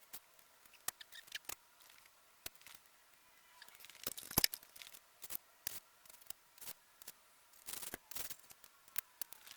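Irregular sharp clicks and clinks of metal sockets being handled and pushed onto a socket organizer tray, with two brief bursts of denser clatter about four and eight seconds in.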